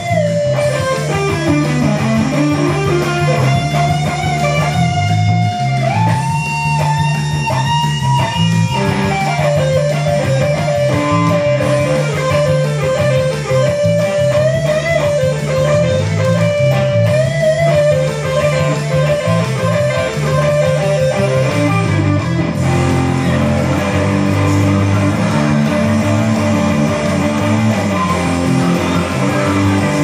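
Electric guitar playing a rock lead line full of bent and gliding notes over a low, steady rhythm part. The lead bends and slides most in the first nine seconds, then settles into repeated picked notes.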